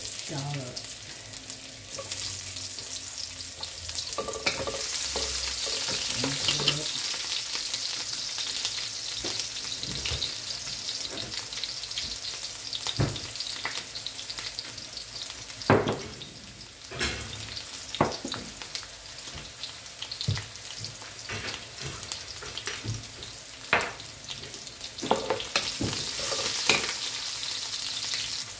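Garlic sizzling as it sautés in hot oil, stirred with a utensil that knocks and scrapes against the pan now and then.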